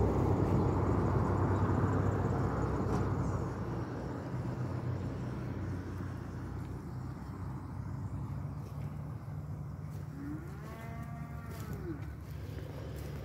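A cow moos once, about ten seconds in: a single call under two seconds long that rises and then falls in pitch. Before it, a loud rushing noise fades away over the first few seconds, over a steady low hum.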